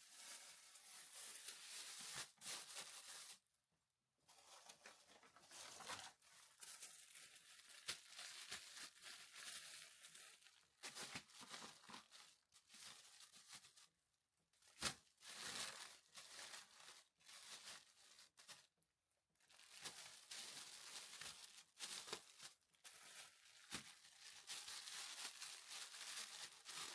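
Plastic freezer and sandwich bags of frozen food crinkling and rustling as they are handled and sorted, in irregular stretches with brief pauses.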